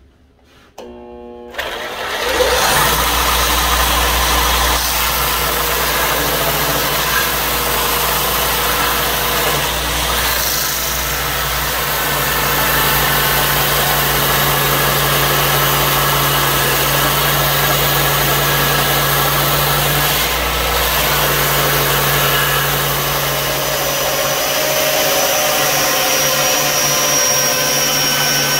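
Belt grinder starting up about two seconds in, then running steadily with a low motor hum under the hiss of the abrasive belt as a wooden knife handle is sanded against it.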